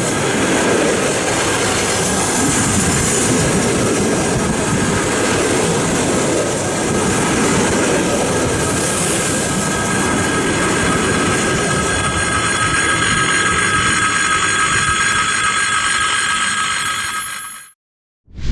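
ED4M electric multiple unit running on the rails, a dense steady rumble of wheels and running gear. Several steady high-pitched tones join in from about twelve seconds in. About a second before the end the sound cuts off abruptly.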